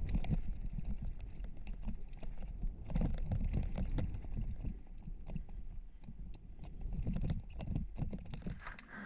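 Mountain bike rolling down a rough dirt and stone trail, heard from a helmet-mounted camera. A steady low wind rumble on the microphone is mixed with constant knocks and clatter from the tyres and bike and from the rattling full-face helmet.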